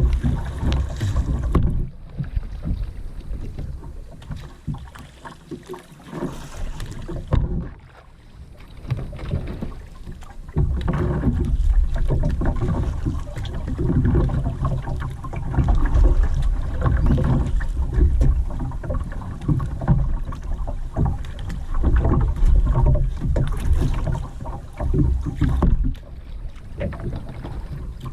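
Kayak paddling on the water: irregular splashing and swishing of paddle strokes. A low rumble of wind on the microphone gets heavier about a third of the way in.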